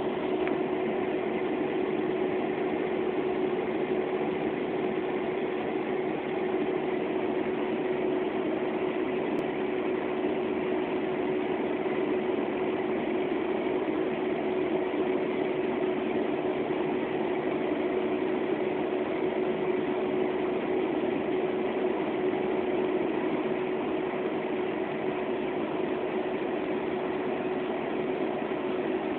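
Biomass briquetting press running steadily: a continuous, unchanging machine noise with one steady hum held throughout.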